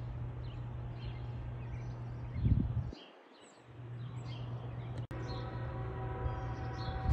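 Small birds chirping over a steady low hum of outdoor noise. About five seconds in, after a brief dropout, an approaching train's horn starts sounding one sustained chord of several notes.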